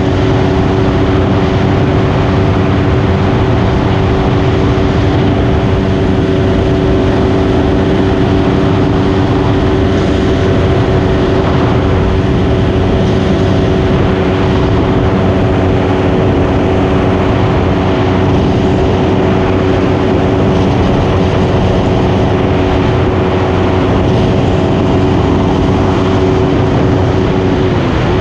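Honda 100 dirt bike's single-cylinder engine running at a steady pitch while cruising, over a constant rushing hiss of wind and road.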